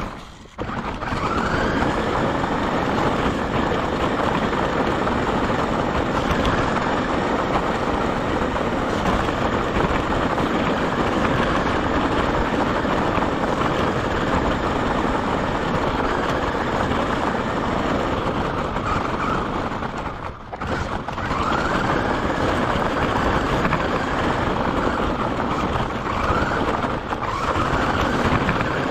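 Radio-controlled car driving over gravel, heard from a camera riding on the car. The tyres make a steady crunching rumble on the gravel, and the motor's whine rises in pitch as it speeds up: near the start, again after a brief lull about two-thirds through, and once more near the end.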